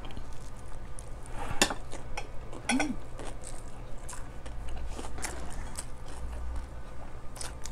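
Eating at close range: chewing and mouth sounds, with scattered light clicks and taps on plates as rice and food are scooped up by hand.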